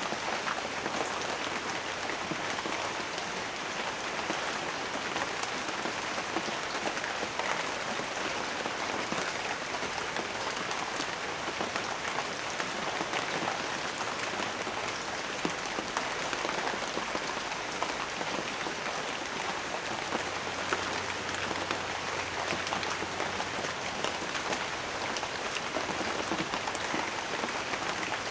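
Steady rain falling, a dense even hiss of many drops with scattered individual drop ticks standing out.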